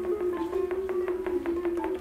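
Music: a steady held drone with short, plinking mallet-like notes at changing pitches over it, and light ticks.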